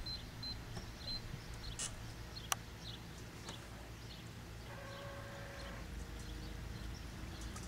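Wind rumbling on the microphone with scattered faint clicks and one sharp click about two and a half seconds in. Around five seconds in, a brief electric whine of about a second comes from the remote-controlled Minn Kota trolling motor as it turns the boat.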